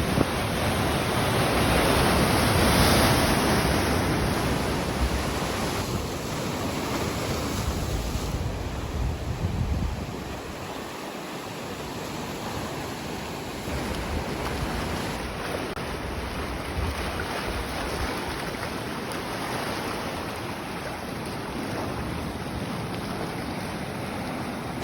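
Sea waves washing onto the shore, a surge swelling about two to three seconds in and easing off by about ten seconds, then a steadier wash. Wind buffets the microphone throughout.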